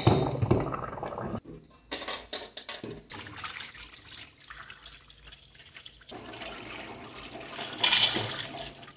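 Water running from a kitchen tap into a foil tray in a sink, splashing as hands rinse and rub cooked pork offal, with a louder splash near the end. A few knocks come before the water starts.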